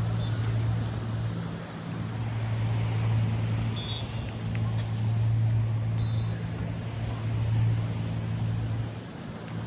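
A steady low engine-like hum over an even wash of outdoor noise, dipping briefly a couple of times, with two short high chirps in the middle.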